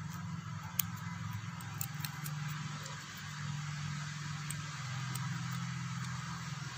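A steady low mechanical hum, like a motor or engine running, its pitch dropping slightly about five seconds in, with a few faint clicks of a plastic pen tube being handled.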